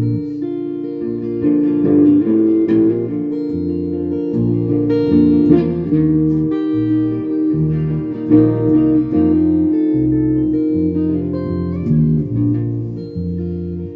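Instrumental break played on guitar, with no singing. Sustained melody notes sit over low notes that step from one pitch to the next every second or so.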